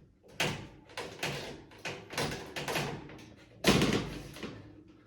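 A series of knocks and rattles as the HVAC filter cover is handled and shut over a freshly installed air filter, the loudest a thump a little before four seconds in.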